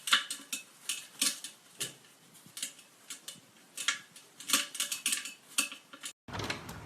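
A series of light clicks and taps of small hard things knocking, at an irregular pace.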